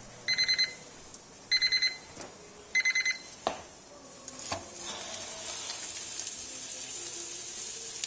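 Breville BOV800XL Smart Oven's end-of-cycle alert: three bursts of four quick high beeps about a second apart, signalling that cooking is done. Then a couple of clicks as the oven door is opened, followed by a faint steady sizzling from the cooked chicken on the foil-lined tray.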